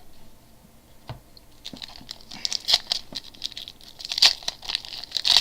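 Trading-card pack wrapper crinkling and tearing as it is opened by hand, a faint crackle that grows busier and louder from about two seconds in.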